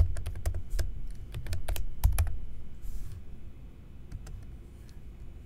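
Typing on a computer keyboard: a quick run of keystrokes over the first two seconds or so, then a few scattered, fainter taps.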